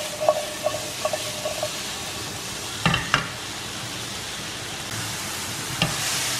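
Mushrooms and small onions sizzling in butter over high heat in a nonstick frying pan, with light clicks as the pieces tumble while the pan is tossed. About three seconds in come two sharp knocks as the pan is set back on the gas burner's grate, and another knock near the end as it is lifted to toss again.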